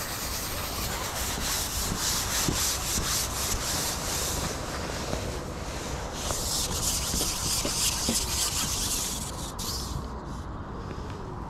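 Carbon fishing pole being slid along, a rubbing, hissing scrape in two long stretches with a short break between them.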